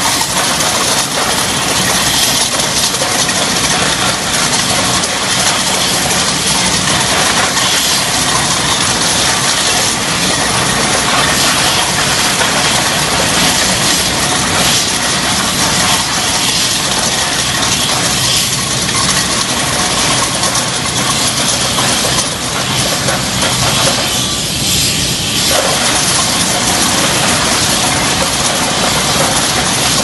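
Remote-controlled tracked demolition robot cutting into a blast furnace trough lining with an arm-mounted rotary drum cutter: a loud, steady grinding and hiss of machine and cutting.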